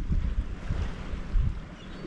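Wind buffeting the microphone in irregular gusts, over small waves washing against a sea pier.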